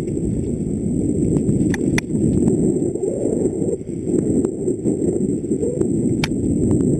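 Mountain bike descending a dirt forest trail, heard from a helmet-mounted camera: a constant low rumble of wind on the microphone and tyres over dirt. There are two sharp clicks from the bike about two seconds in and another near the end.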